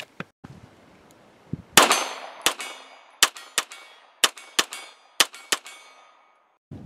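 A 9mm Canik TP9-series pistol fired about eight times, the later shots in quick pairs about a third of a second apart, with bullets clanging on steel targets.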